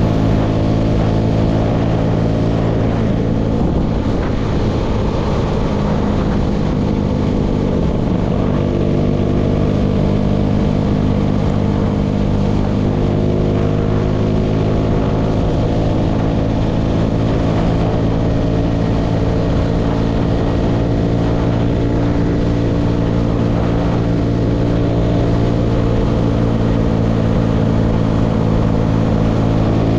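Engine of a baler outfit running steadily at constant speed: an even, loud, low drone with no change in pitch.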